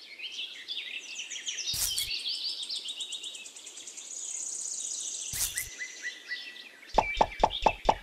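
Many small birds chirping and twittering without a break. A dull knock comes about two seconds in and another about five seconds in, then a quick run of sharp, loud knocks, about five a second, starts near the end.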